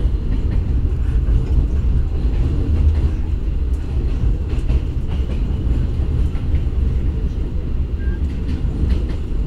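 Argo Wilis passenger train running at speed, heard from inside the coach: a steady, loud low rumble with a few faint clicks.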